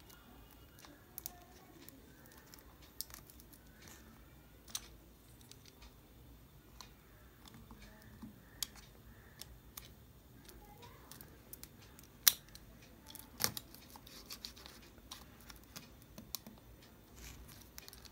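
A small blade cutting and snipping at the seal of a cardboard earbuds box, heard as scattered sharp clicks with light handling rustle. The two loudest snips come about twelve and thirteen seconds in.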